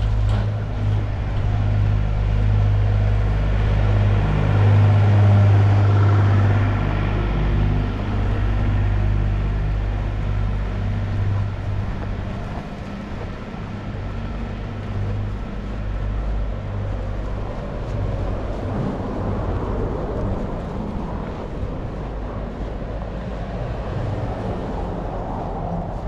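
Snowstorm street ambience: wind on the microphone as a steady low rumble, with a car driving along the snow-covered street.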